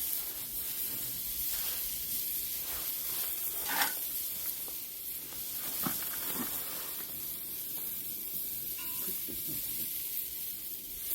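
Food sizzling in a hot pan, a steady hiss, with a few light knocks, the clearest about four seconds in.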